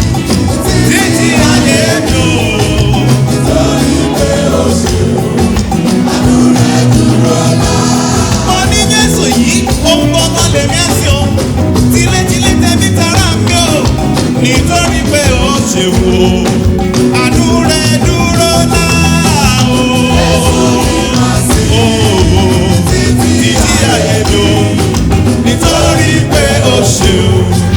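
Church anthem with a live band playing a steady, dancing beat and voices singing along at times.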